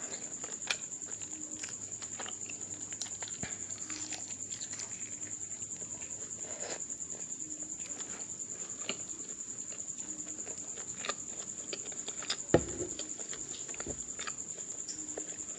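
Close-up eating sounds: wet chewing and lip smacking, with small clicks throughout and one sharper click about twelve and a half seconds in. A steady high-pitched whine sits behind it.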